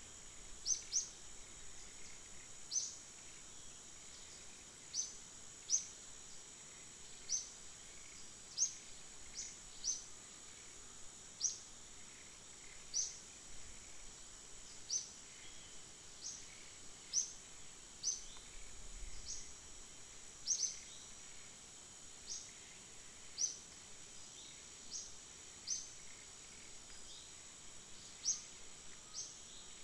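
Woodland ambience: a steady high-pitched insect drone, with short high chirps repeating about once a second, sometimes in quick pairs.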